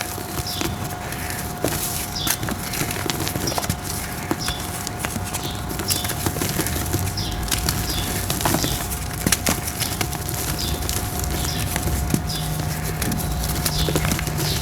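Dry red brick-dirt shapes crumbling and crunching by hand, with many small irregular cracks and crackles. A faint steady hum runs underneath.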